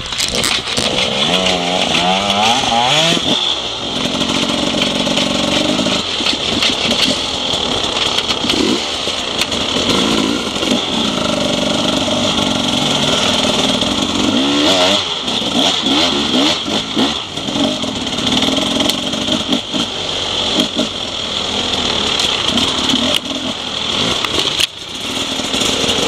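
Enduro dirt bike engines running and being revved up and down at low speed, their pitch rising and falling several times, dropping briefly near the end.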